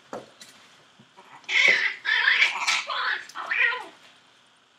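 Young Chihuahua puppies, about six weeks old, letting out a string of high-pitched yelps and squeals for about two seconds, starting about a second and a half in.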